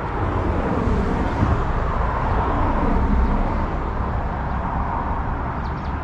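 Outdoor noise: wind rumbling on a handheld phone's microphone, under a steady rushing sound that swells about two to three seconds in.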